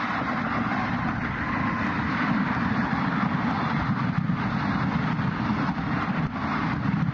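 Container freight train hauled by a JR Freight EF210 DC electric locomotive passing at speed: a steady rumble of the container wagons' wheels on the rails, with a couple of faint knocks.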